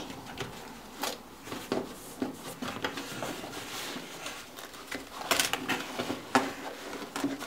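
Cardboard and packaging rustling, scraping and knocking as hands rummage inside a cardboard shipping box, in irregular bursts, loudest about five seconds in.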